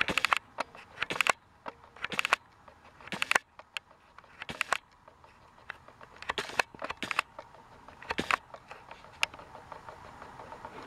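Plastic toy train wheels clicking over the track joints of a Trackmaster motorized railway: irregular clusters of quick clacks about every second, over a faint steady hum.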